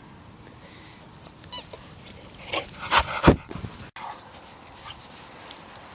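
Terrier-cross dog making short sounds: a brief high whine about a second and a half in, then a few short sharp sounds around three seconds in.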